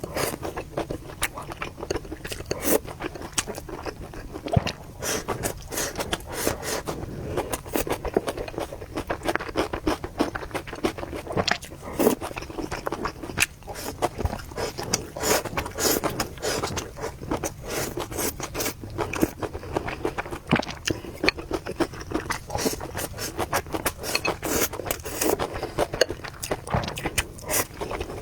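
A person eating noodles close to the microphone: continual chewing, with many quick, irregular wet clicks and smacks.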